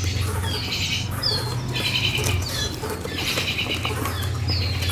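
A bird calling over and over, about every second and a half; each call is a short falling whistle followed by a harsh, buzzy rattling note. A steady low hum runs underneath.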